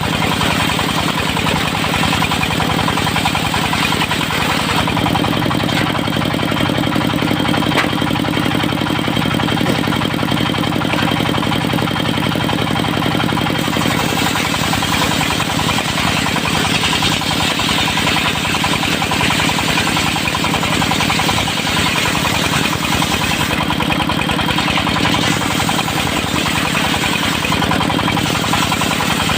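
Diesel-powered portable circular sawmill running steadily: the engine's constant drone with the saw's noise over it. The low engine note shifts slightly about five seconds in.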